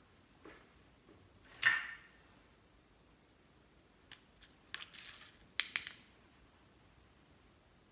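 Sharp clicks and clatters of small hard objects knocking against each other or a container: one loud clack about a second and a half in, then a cluster of clicks and rattles between about four and six seconds.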